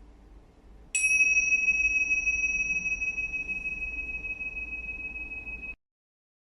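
A small metal bell struck once, a 'chiin' ding about a second in, ringing on as a clear high tone that slowly fades, then cuts off abruptly near the end.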